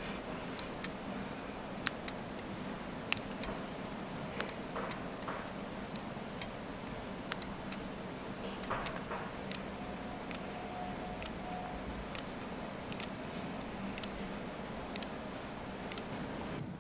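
Small, sharp clicks and taps at an uneven pace, about one or two a second, typical of metal watchmaking tools touching watch movement parts, over a steady low hum.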